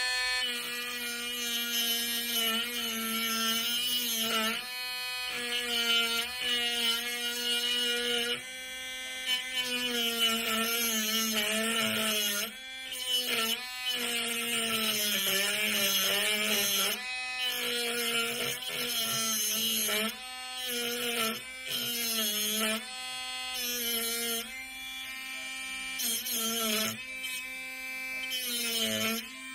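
Handheld rotary tool with a small abrasive cut-off wheel running at speed and grinding a notch into a steel screwdriver bit to turn it into a two-prong spanner security bit. Its whine sags in pitch and dips in level again and again as the wheel bears on the metal, with a few brief breaks as it is lifted off.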